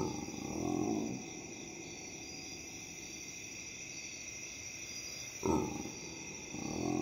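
A growl sound effect that stands for a hungry stomach rumbling is heard twice, at the start and again about five and a half seconds in. Each time it slides downward and is followed by a lower rumble, over a steady night background of chirping crickets.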